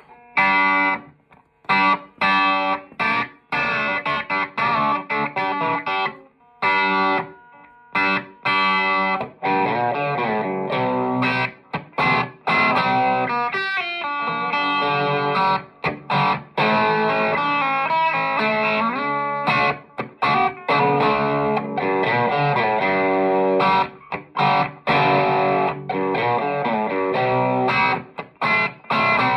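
Grubisa '53-style electric guitar played through a Soldano amplifier with a little gain, lightly overdriven: chords and single-note runs broken by short stops, with several brief silences in the first eight seconds.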